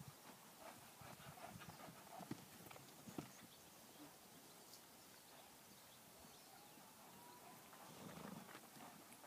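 Faint, muffled hoofbeats of a ridden horse moving around a soft sand pen, clearest in the first few seconds and fading after that.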